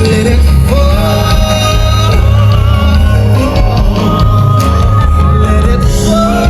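Loud music with a heavy bass beat and a singing voice.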